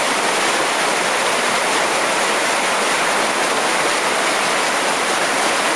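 River water rushing steadily over rocky riffles and small rapids close by, a constant loud hiss without a break.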